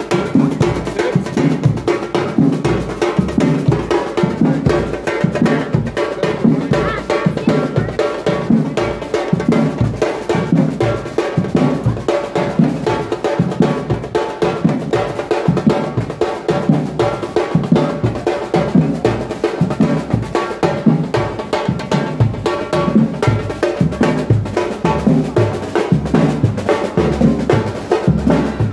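Street drummers playing large strapped Brazilian bass and mid drums in a dense, steady, fast rhythm, with deep booming strokes under sharper higher hits.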